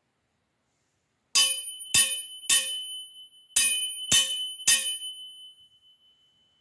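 Metal sai struck six times, in two groups of three, each strike ringing like a bell with a high, clear tone that lingers after the last one.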